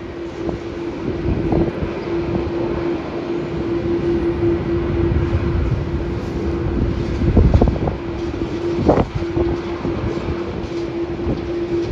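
Airport ambience: a continuous roar of jet airliner engines with a steady hum, and wind buffeting the microphone in low thumps, strongest about halfway through.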